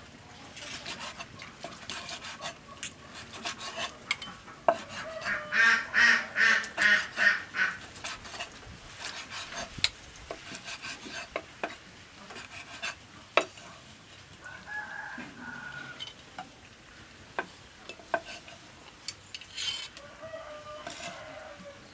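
Knife knocking and cutting on a wooden chopping block through boiled cow intestines, with scattered sharp knocks. About five seconds in, a chicken gives a loud run of about eight calls over two and a half seconds; shorter bird calls follow near the middle and near the end.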